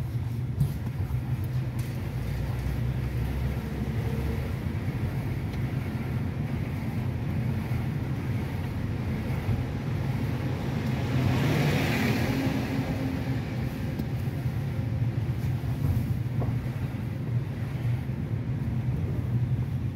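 Car driving slowly on a city street, heard from inside the cabin: a steady low rumble of engine and tyres, with a brief swell of louder noise about halfway through.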